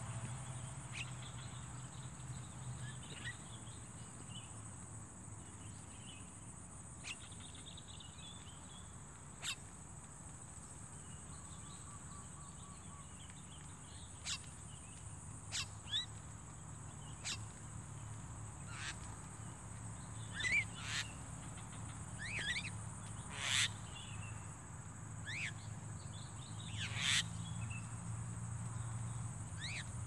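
Javan mynas giving short, sharp calls at scattered intervals, more often in the second half, the loudest about two-thirds through, over a steady high insect drone.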